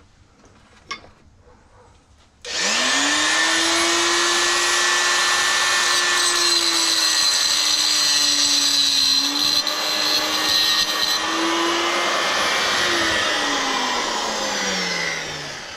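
A small electric power tool's motor switched on about two and a half seconds in: its pitch rises quickly to full speed, holds there for about ten seconds with slight dips, then falls slowly as the motor coasts down after switch-off.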